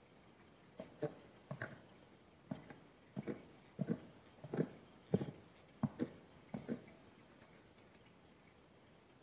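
An uneven run of about a dozen short knocks, many in quick pairs, over about six seconds, like the footsteps of a hoofed animal on hard ground.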